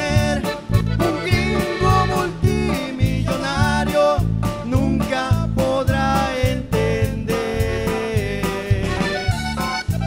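Live band playing: a male voice singing over accordion, electric bass and drum kit, with a steady beat throughout.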